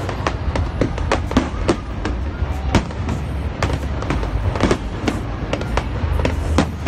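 Aerial fireworks bursting overhead: a rapid, irregular run of sharp bangs and crackles, several a second, over a steady low rumble.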